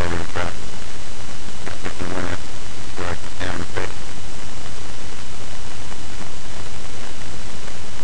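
Loud, steady hiss from a poor-quality computer microphone, with a few short bursts of indistinct, muffled speech in the first four seconds.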